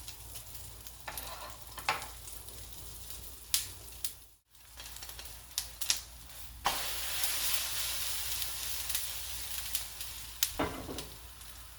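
Potato pancakes sizzling as they fry in olive oil in a pot, with a few light utensil knocks. The sizzle cuts out briefly about four and a half seconds in, then comes back louder for several seconds.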